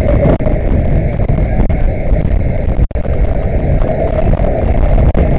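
Strong wind buffeting a small camera microphone riding on a swinging chain carousel: a loud, steady, deep rushing noise, with a momentary dropout about three seconds in.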